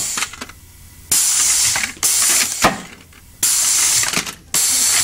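Pneumatic ram cycling repeatedly: four sharp blasts of compressed-air hiss, each under a second long, as the valve fires and vents the cylinder, with a knock about two and a half seconds in.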